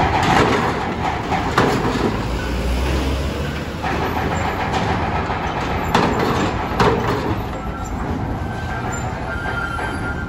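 Trucks and a car driving off a ferry onto the steel ramp: engines running, with a few sharp metallic clanks as wheels cross the ramp's steel plates and joints.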